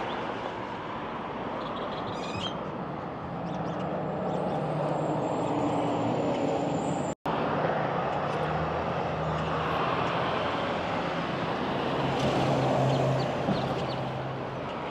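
Street traffic: motor vehicles driving past with a steady engine hum over continuous road noise, briefly cut off for a fraction of a second about seven seconds in.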